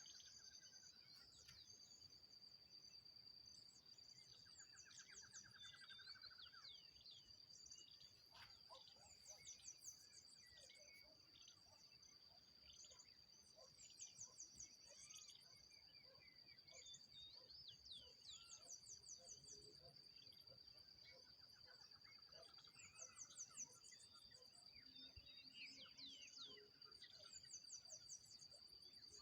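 Faint insect and bird chorus: an insect's unbroken high-pitched drone, over which a bird repeats a short rapid trill every four to five seconds among scattered chirps.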